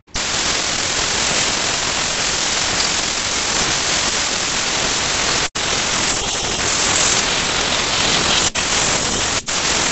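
Compressed-air blow gun hissing steadily as it blows out a forklift automatic transmission case. The air cuts off for an instant about halfway and twice more near the end.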